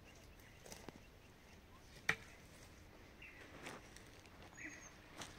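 A few knocks of a long-handled digging tool hitting stony ground, the sharpest and loudest about two seconds in. Birds chirp faintly.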